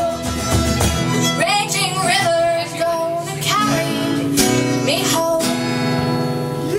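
Band music with acoustic guitar and a sung melody.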